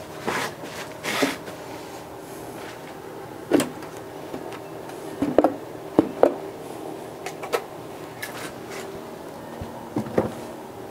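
Aluminium cylinder head of a Honda R18 engine being worked loose and lifted off the block: scattered metallic knocks and clunks, a cluster of the sharpest about halfway through, over a faint steady hum.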